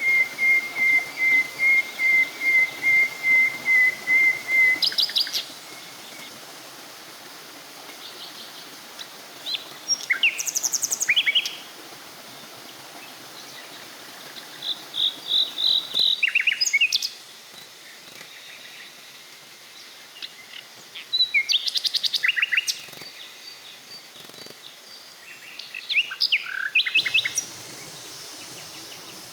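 Wild forest birds calling: a fast series of evenly repeated whistled notes, about four a second, for the first four seconds or so. Then come scattered short chirps and quick trills from other birds, over a steady background hiss.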